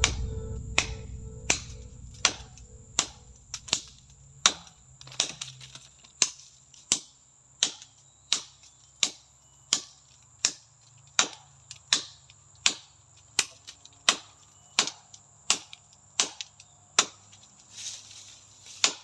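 Machete blade chopping into the trunk of a durian tree in steady strokes, a sharp wooden strike about every 0.7 seconds. A thin steady insect buzz runs behind it. Background music fades out over the first few seconds.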